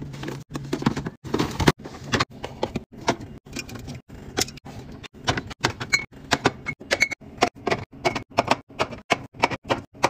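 Items being packed into a refrigerator: a quick, irregular run of clicks, taps and knocks as bagged produce, glass bottles and cans are set into the drawer and onto the shelves, with a few short ringing clinks past the middle.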